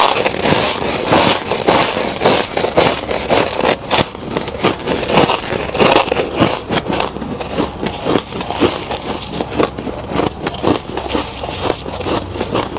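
Freezer frost crunching as it is bitten and chewed: a dense, continuous run of crackles and snaps.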